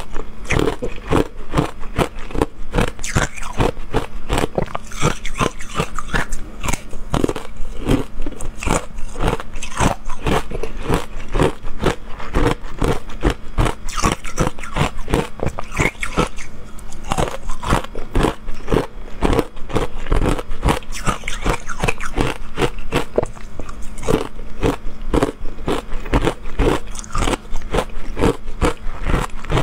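Close-miked biting and chewing of matcha-powder-coated ice: rapid, sharp crunches, several a second, as the hard ice breaks between the teeth. A faint steady low hum runs underneath.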